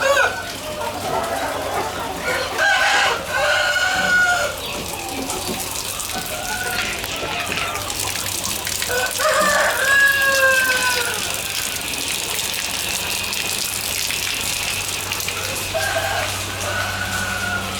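Roosters crowing about three times, the longest crow about ten seconds in, over hens clucking at a chicken farm. A steady hiss and a low hum run underneath.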